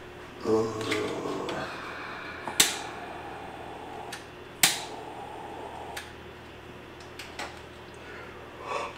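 Scattered sharp clicks and knocks of things being handled on a kitchen counter, two louder ones about two and a half and four and a half seconds in, over a steady low hum.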